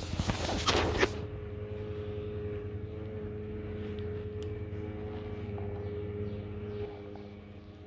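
Clatter and rubbing of close handling for about the first second, then a steady mechanical drone with a low hum and a few faint clicks, easing off near the end.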